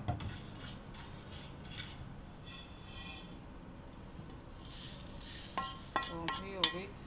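Roasted fennel seeds being scraped out of a non-stick frying pan onto a steel plate with a wooden spatula: scraping and the patter of seeds, with a few sharp metal clinks and ringing near the end.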